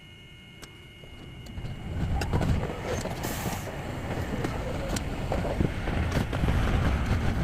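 Hankai Tramway streetcar running: low rumble and wheel noise that swells from quiet about a second and a half in to a loud, steady din, with scattered sharp clicks.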